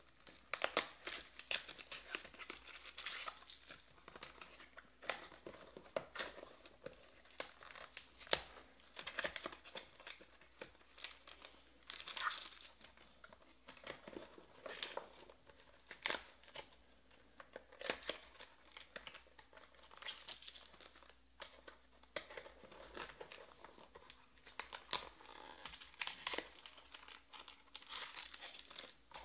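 Hands opening trading-card packs: foil pack wrappers crinkling and tearing, with cardboard boxes and packs being handled. The sound comes as irregular rustles and sharp clicks, with a few longer crinkly stretches.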